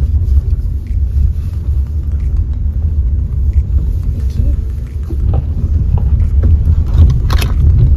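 Car's low road rumble from inside the cabin while driving over a rough, potholed road, with a few knocks from the jolts; the loudest knock comes about seven seconds in.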